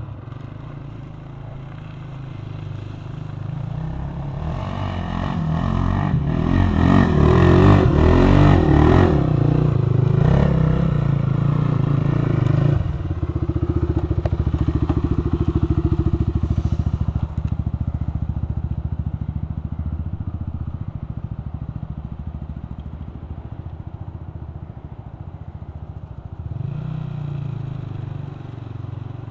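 Sport ATV engine revving under load as the quad climbs a sandy hill, growing louder to a peak about halfway through, then dropping off suddenly and fading away. Another quad engine swells up near the end.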